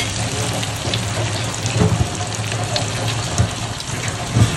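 Bakwan batter deep-frying in a wok of hot oil: steady sizzling and crackling. A few dull spatula knocks come about two, three and a half and four and a half seconds in.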